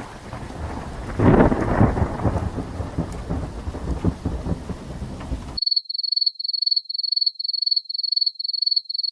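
Thunderstorm sound effect: steady rain with a rumble of thunder about a second in, cutting off suddenly a little past halfway. It is followed by a high-pitched beep repeating about two or three times a second.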